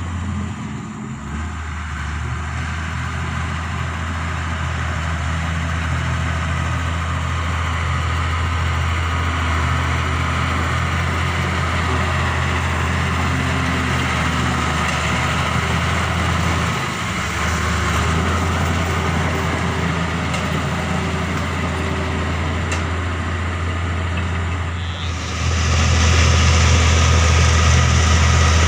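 Diesel engine of a small D4 bulldozer running steadily with a deep drone, dipping briefly twice and growing louder and harsher about 25 seconds in.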